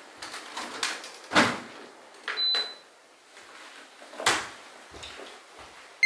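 Indoor household knocks and thuds, with a door among them, the loudest about a second and a half in. A short high electronic beep sounds about halfway.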